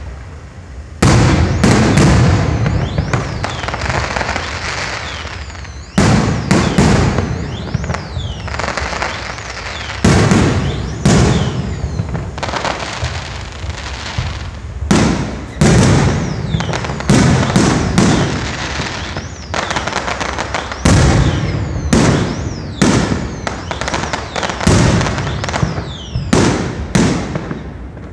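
Aerial firework shells bursting in a rapid barrage: sharp bangs every second or so, often two or three in quick succession, each trailing off in a long rolling echo. The first bang comes about a second in.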